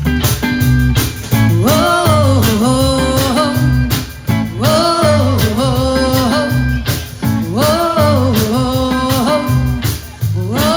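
Live rock band playing an instrumental break, with drums, bass and guitars keeping a steady beat under a bending, wavering lead melody line.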